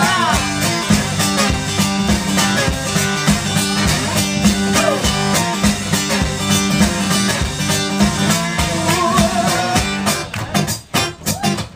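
Live blues-rock: amplified guitar over a steady beat, with a man singing. Near the end the music thins to sparse separate beats.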